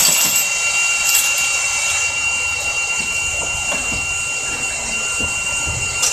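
Steady mechanical running with a thin high whine from the onboard equipment of a stationary Iyo Railway Moha 50 tram, heard inside the driver's cab.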